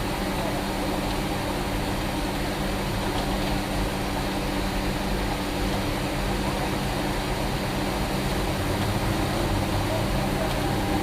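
Concrete mixer truck's diesel engine running steadily, with an even, unchanging pitch.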